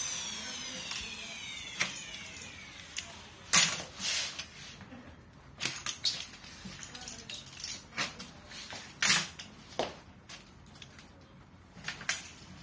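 Self-adhesive PVC film being handled on wood: about seven sharp crackles and scrapes come at irregular moments as the film is pulled, pressed down and trimmed with a utility knife. A motor whine falls in pitch and fades out over the first three seconds.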